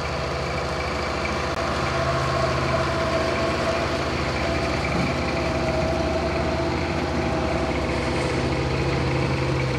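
Small centre-cab diesel switcher locomotive's engine running steadily as it rolls slowly past, with a faint whine above the engine note through the middle seconds.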